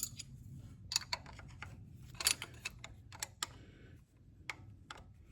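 Light, irregular metal clicks and taps of hand tools on a valve rocker arm's adjusting screw and locking nut, as the tappet clearance on a Case 770 diesel engine is being reset.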